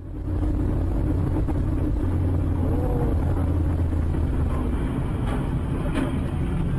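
Steady low rumble of a car driving on a wet highway, heard from inside the cabin: engine and tyre noise. Faint knocks near the end, where a skidding sedan hits the side of a lorry.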